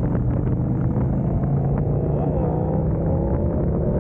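KTM motorcycle engine pulling in third gear, its pitch climbing as the bike gathers speed, with wind rushing over the microphone.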